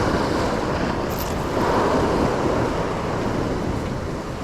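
Sea waves washing against a rocky shore, with wind buffeting the microphone; the wash swells about a second and a half in.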